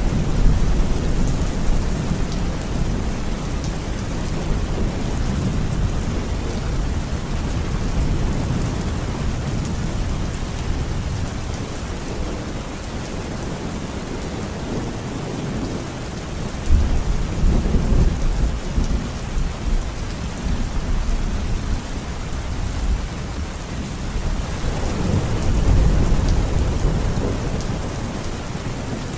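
Heavy rain falling steadily, with low rumbles of thunder that swell up a little past halfway and again near the end.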